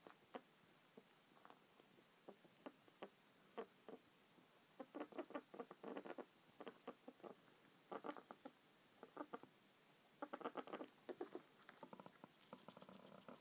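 Pet rat nibbling food and rooting through pellet litter: faint crunching clicks, some single and some in quick bursts of several a second.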